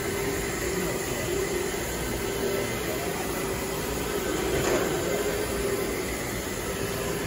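Electric carpet-scrubbing machine with a motor-driven brush head running steadily as it is pushed across carpet, an even machine hum with brush noise.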